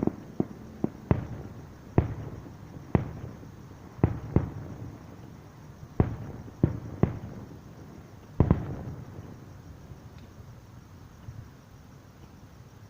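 Pyrotechnic firework shells bursting in a string of about a dozen sharp booms at uneven intervals. The last and loudest boom trails off in a rumble, and the bursts stop a few seconds before the end.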